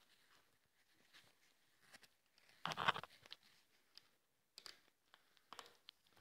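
Faint, scattered rustles and clicks of parts being handled while the door trim is put together, with a louder rustle about three seconds in.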